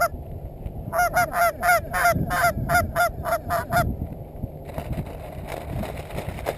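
Goose honking: a quick, evenly spaced run of about a dozen loud honks over some three seconds, stopping about four seconds in. A rustling noise follows.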